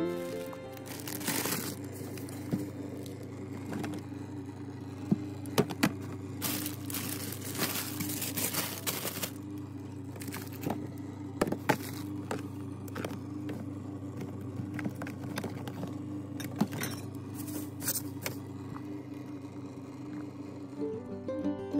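Plastic food containers and produce bags being handled and stacked on refrigerator shelves: irregular scrapes, rustles and clicks over a steady low hum.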